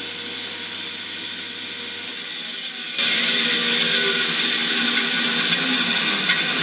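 Charnwood B350 bandsaw running, its new blade cutting through a piece of pine with little effort. About three seconds in the sound turns suddenly louder and hissier, then stays steady.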